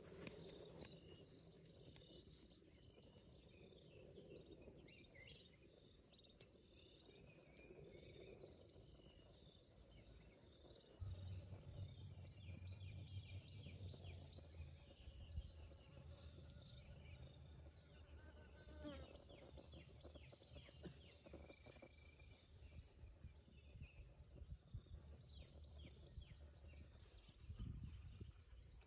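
Faint outdoor ambience: a steady high insect drone with scattered bird chirps. About eleven seconds in, a low rumble joins.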